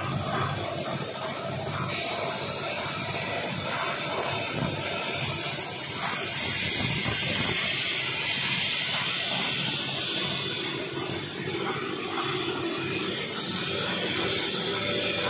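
Steady hiss and hum from a switched-on Krisbow CUT 40A plasma cutter and its compressed-air supply, with the high hiss stronger from about five to ten seconds in.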